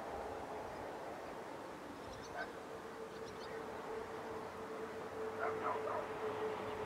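A dog barks a few times about five and a half seconds in, over a steady hum and a few faint bird chirps.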